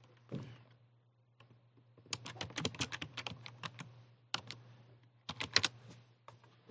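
Typing on a computer keyboard: a run of keystrokes lasting about two seconds, then two short bursts of keystrokes. A steady low hum runs underneath.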